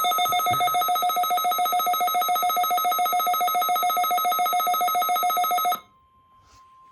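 Weather alert radio's alarm sounding: a loud, rapidly pulsing electronic ringing tone that cuts off suddenly about six seconds in. A faint steady tone near 1 kHz follows, the NOAA Weather Radio 1050 Hz warning alarm tone that opens the weekly test.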